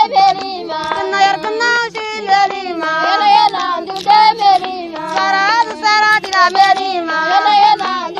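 A Toubou song: a high singing voice carrying a melody over a repeating instrumental accompaniment.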